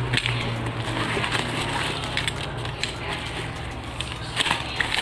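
Plastic courier mailer bag crinkling and tearing as a utility knife slices it open, with scattered sharp crackles. A steady low hum runs underneath.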